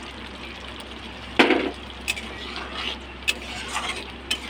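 Cashew paste being poured from a steel bowl into a kadai of sizzling mustard masala, over a steady low sizzle. A short clatter comes about a second and a half in, then a few light clicks of the spatula against the pan.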